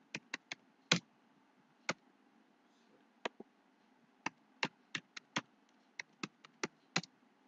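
Computer keyboard keys clicking as a password is typed: a few keystrokes at the start, a pause, then a quick run of about a dozen keystrokes.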